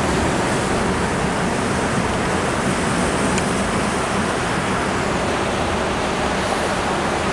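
Ocean surf washing over the rocks at the foot of a sea cliff, a steady even rush of water.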